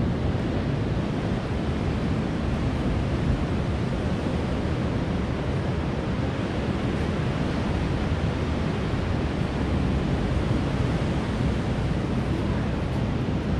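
Wind buffeting the microphone: a steady rushing hiss over an unsteady low rumble, with no breaks.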